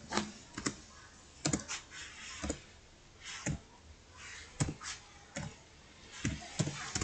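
Computer keyboard keys tapped one at a time while a number is entered: about a dozen short, separate clicks at an uneven, unhurried pace.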